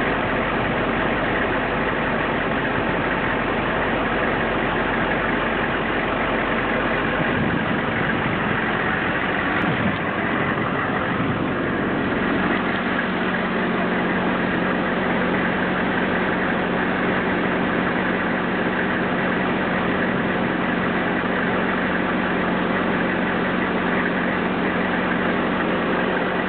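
A vehicle engine idling steadily, a constant hum that shifts in pitch make-up partway through.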